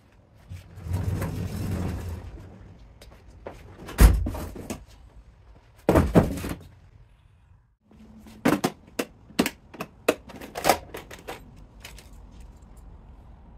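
Shop handling noises: a low rolling rumble from the wheeled saw cabinet on the concrete floor, a loud thump about four seconds in, and a brief scrape around six seconds. Near the end come rapid clinks and clatters of hand tools being rummaged through in a metal cantilever toolbox.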